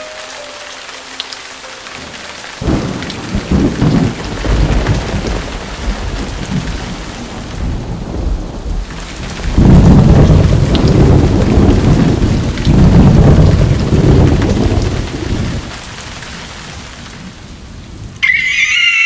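Thunderstorm sound effect: steady heavy rain with three long, loud rolls of low thunder. A high, wavering cry cuts in near the end.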